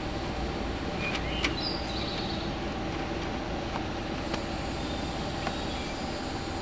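Hand-tool work on a garden tractor's belt pulley adjusting bolt: a few sharp metallic clicks over steady background hiss, with a few short high bird chirps in the first half.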